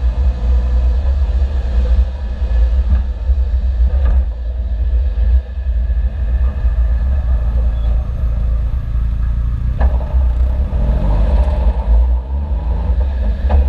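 Suzuki Jimny under way: heavy low rumble with the engine running beneath it. There are a couple of short sharp knocks, and the revs rise from about eleven seconds in.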